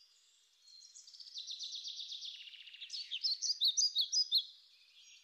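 A songbird singing: a fast, high trill, then a louder run of separate chirps from about three seconds in that fades out shortly before the end.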